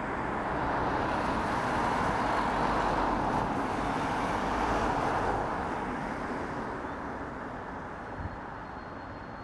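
A car passing on the road: a rush of tyre and engine noise that swells over the first few seconds, then fades away.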